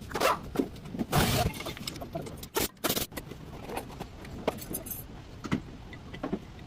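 Metal parts and hand tools clinking and clattering as they are handled, a string of irregular sharp knocks, with two louder noisy rushes in the first second and a half.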